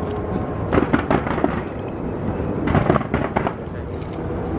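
Skyscraper-launched fireworks bursting: a steady rumble of bangs with two dense clusters of sharp cracks, about a second in and about three seconds in.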